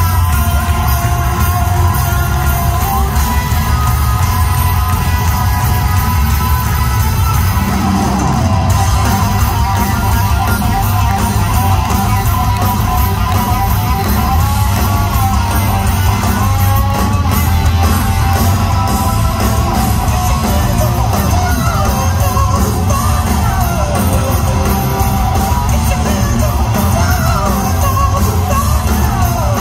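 Live hard rock band playing loud in a large hall: distorted electric guitars, bass and drums, with a wavering, bending higher line coming in about eight seconds in.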